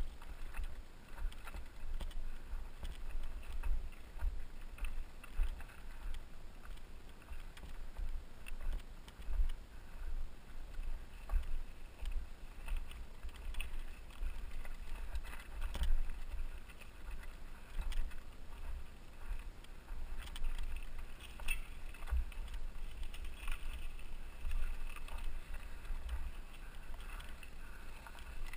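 Mountain bike riding over loose, rocky ground: tyres crunching on gravel and stones and the bike rattling with each bump, over irregular low rumbling thumps on the camera's microphone.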